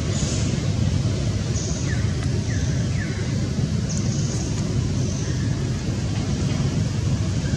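Steady low outdoor rumble with no clear source, with a few faint short chirps falling in pitch about two to three seconds in.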